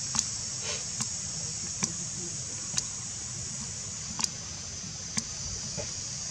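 Steady high-pitched insect chorus, with sharp short clicks about once a second and a low rumble underneath.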